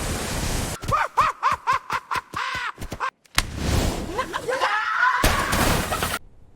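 An animated character's wordless voice: a quick run of about nine short, high calls, some four a second, like a cackling laugh, between two bursts of rushing noise. The noise cuts off abruptly near the end.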